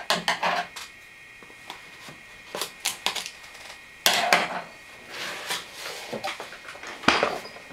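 A cardboard shipping box being cut open with scissors and its lid pulled up: scissor snips, cutting and scraping on the taped cardboard, with a louder tearing scrape about four seconds in and a sharp knock near the end.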